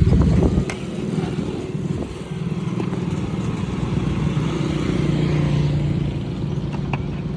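Road traffic: a motor vehicle engine running close by, loud for the first half-second and then dropping to a steadier engine hum that swells again about five seconds in.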